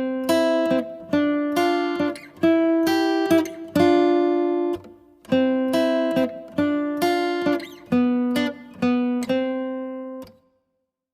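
Music: a melody of single plucked notes, each starting sharply and fading, which stops about ten seconds in.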